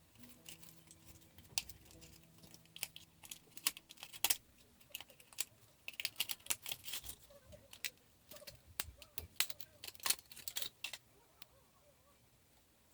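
Irregular small clicks and taps of hard plastic and metal parts of a laptop being handled during disassembly, coming in clusters with short pauses between.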